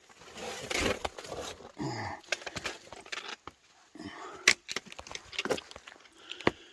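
A hiker clambering over wet boulders: sharp knocks and scuffs of shoes and hands on rock, with hard breathing and a short grunt about two seconds in.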